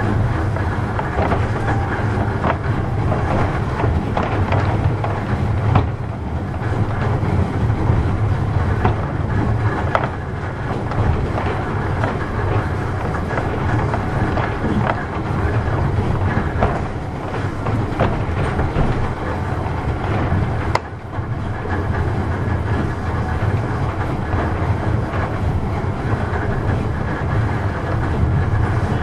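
Nishi-Shigi Cable Ko 7-type funicular car No. 8 running downhill on its rails: a steady rumble of the wheels with scattered clicks, and a brief drop in the noise about three quarters of the way through.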